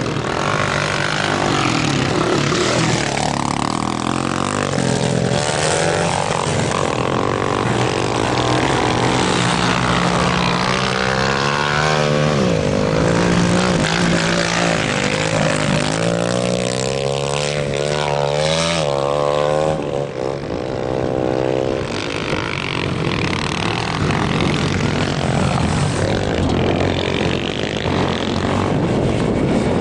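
Several motocross dirt bike engines racing on a dirt track, revving up and down as the riders accelerate and shift, their pitches overlapping, dipping briefly about two-thirds of the way through.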